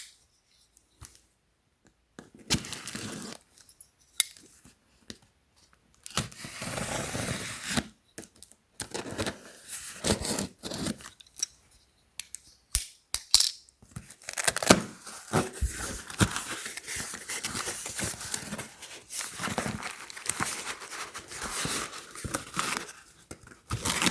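A package being torn open and unwrapped by hand: ripping and crinkling of packaging, in scattered strokes at first and then almost continuous from about six seconds in, with sharp clicks here and there.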